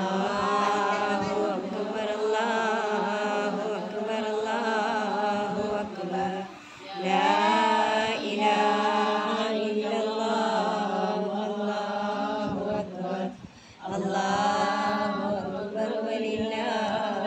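Melodic Islamic chanting in long, drawn-out, wavering phrases, with brief pauses about six and a half and thirteen and a half seconds in.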